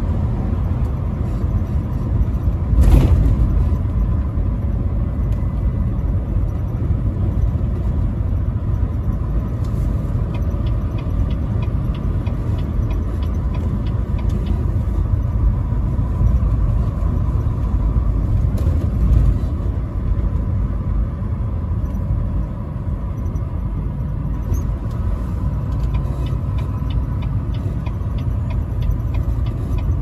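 Semi-truck engine and road noise heard from inside the cab while driving: a steady low rumble. A brief louder thump comes about three seconds in, and a quick, regular light ticking joins near the end.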